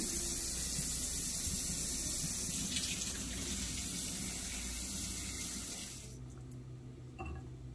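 Kitchen tap running steadily into the sink, cutting off suddenly about six seconds in.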